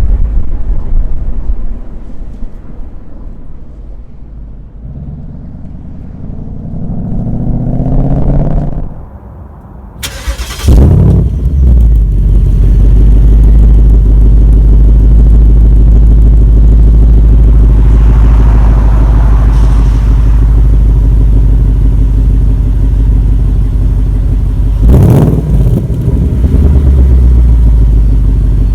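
Ford Mustang GT's 5.0-litre naturally aspirated V8 under way. The revs climb steadily and drop briefly, then the engine comes in hard about ten seconds in and settles into a loud, steady low drone. Near the end it is broken by a couple of short sharp bursts.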